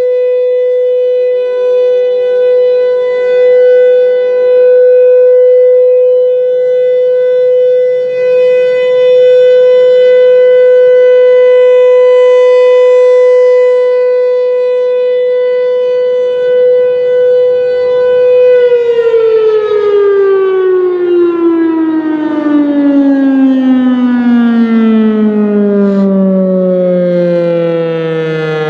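Federal Signal Thunderbolt 1000 outdoor warning siren sounding a steady alert tone, its loudness swelling and dipping as the horn rotates. About two-thirds of the way through it cuts off and winds down, the pitch falling steadily.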